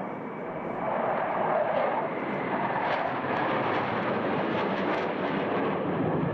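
Jet fighter flying past, a steady rush of engine noise that swells about a second in.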